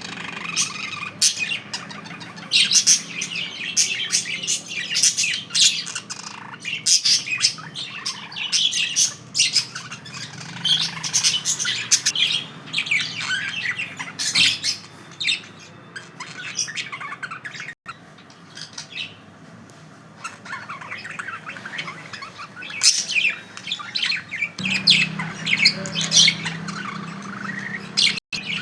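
Pet budgerigars chattering: a flock of rapid, overlapping high-pitched chirps and squawks, thinning out for a few seconds midway, over a steady low hum.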